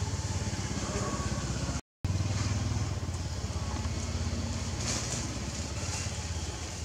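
A small engine running steadily at idle, a low pulsing rumble. It cuts out for a moment about two seconds in.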